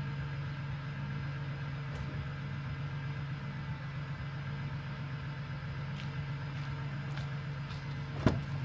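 Ford Transit camper van's engine running steadily, a constant low hum heard from inside the van, with a sharp click near the end.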